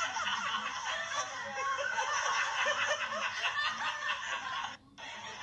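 Laughter, dense and continuous, that cuts out abruptly for a moment near the end.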